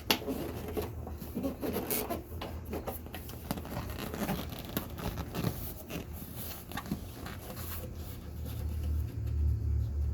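Hands pressing cloth-covered rubber door-frame molding onto the frame's lip: irregular rustling, scraping and light clicks, with heavier low thumps about a second or two before the end.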